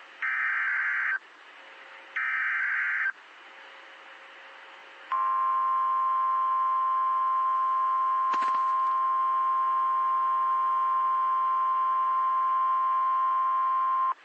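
NOAA Weather Radio alert: two short, harsh SAME digital data bursts about a second apart, then about 5 seconds in the steady 1050 Hz Warning Alarm Tone starts and holds for about nine seconds, with a brief click partway through. The tone signals that a warning announcement follows.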